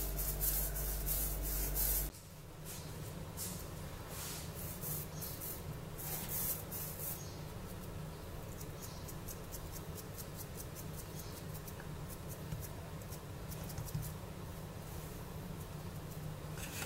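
Hands rolling a log of semolina dough back and forth on a granite countertop: soft, repeated brushing strokes, thickest in the first couple of seconds and fainter later on. A steady low hum runs beneath.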